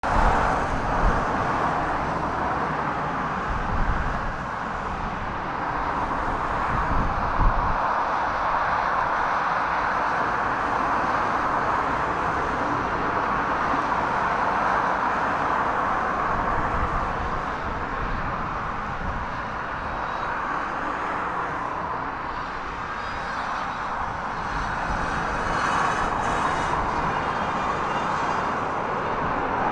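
The four Rolls-Royce Trent 500 turbofans of an Airbus A340-600 running as it comes in on final approach and onto the runway, a steady jet rush. Irregular low gusts of wind buffet the microphone, mostly in the first several seconds.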